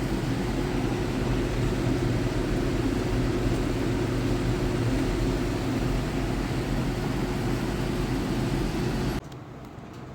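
Panasonic inverter split air conditioner running: a steady hum under even air noise, which drops off sharply about nine seconds in.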